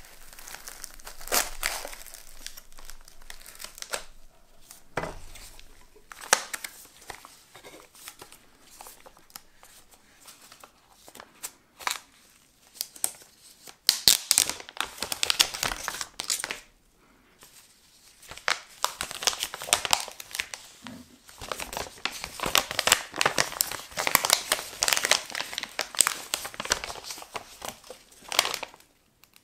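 Clear plastic protective film crinkling and tearing as it is handled and peeled off a sound card, in irregular bursts of rustling that are loudest about halfway through and again in the last third.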